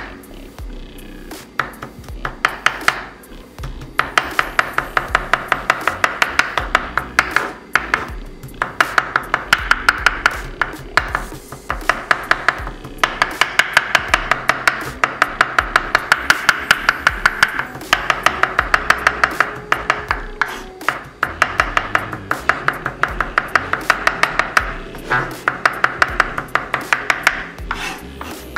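Chef's knife mincing on a wooden cutting board: quick knocks of the blade on the board, about three a second, in runs broken by short pauses, over background music.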